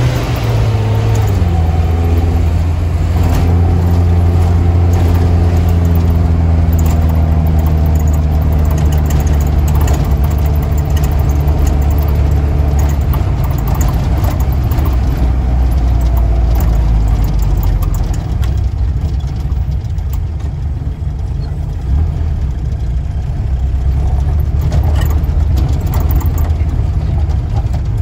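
Mitsubishi Colt L300 minibus engine heard from inside the cabin while under way. Its note falls about a second in, then runs steadily with road noise, and settles lower and a little quieter about two-thirds of the way through.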